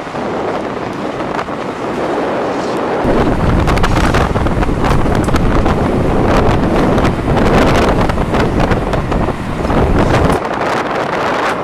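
Wind buffeting the microphone, as a loud, rough rumble. It gets much heavier about three seconds in and eases off abruptly about ten seconds in.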